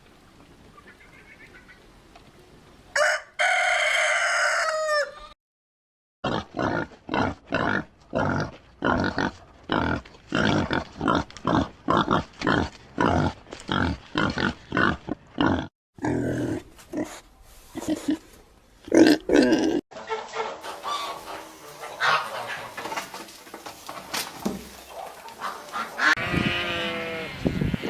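Chickens: a rooster crows once about three seconds in, then hens cluck in quick repeated calls, about two a second, across several spliced clips.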